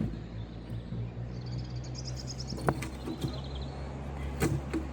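Two sharp knocks about two seconds apart over a steady low hum, with a small bird trilling rapidly in the first half.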